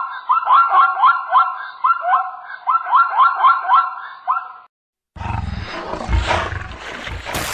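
Plains zebra calling: a run of high, quick, rising yelping barks, several a second, in a few phrases, stopping about four and a half seconds in. After a short gap, a low rumbling, hissing sound begins.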